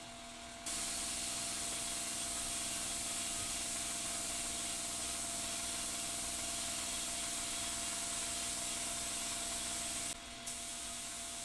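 Cup-fed paint spray gun spraying primer: a steady hiss that starts under a second in, cuts out briefly near the end and then resumes.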